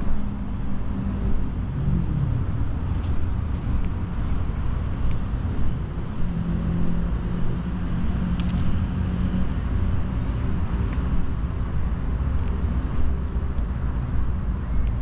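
Road traffic passing: a steady low rumble with car engine hum that sinks in pitch about two seconds in and holds steady for a few seconds around the middle. A brief high chirp sounds about halfway through.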